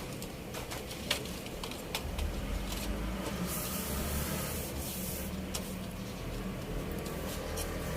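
Scattered light clicks and rubbing from parts of an LED TV being handled and fitted back together, over a low rumble like a passing vehicle.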